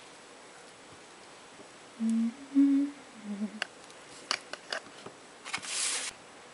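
A person humming a short tune of three low notes about two seconds in, followed by a few light taps and a brief rustle near the end.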